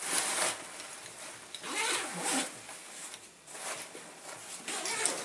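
Backpack zipper being pulled open around the main compartment in several separate pulls, each a short rasping zip.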